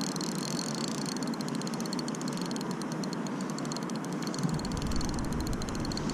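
Spinning reel being cranked against a fish on the line, its gears whirring with a fast, even ticking over a steady rush of background noise. About four and a half seconds in, a low buffeting rumble of wind on the microphone joins.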